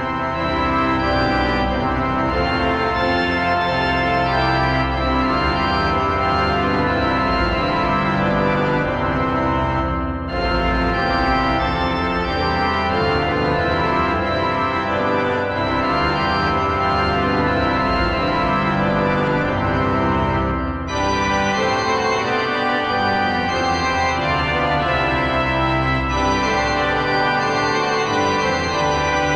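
Organ playing held chords over a deep bass, with brief breaks between phrases about 10 and 21 seconds in.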